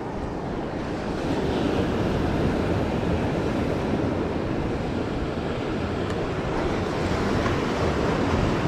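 Sea surf washing over the boulders of a rock jetty, with wind buffeting the microphone.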